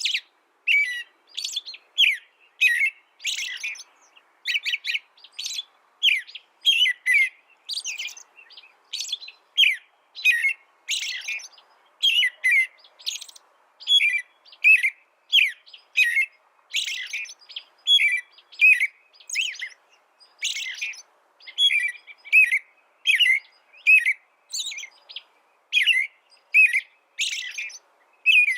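A songbird chirping over and over: short, high chirps about twice a second, without a break.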